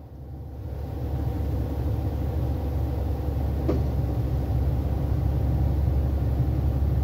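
Low, steady vehicle rumble heard from inside a car's cabin, building up over about the first second and then holding.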